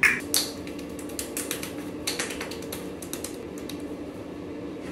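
Fingertips patting quickly on the face, a run of light, irregular taps, over a steady low hum.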